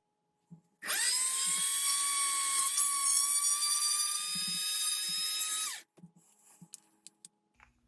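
Small high-speed electric drill running under load as it bores a hole in the model's hull: a steady high whine that creeps slightly up in pitch, starting about a second in and stopping abruptly about five seconds later, followed by a few faint clicks.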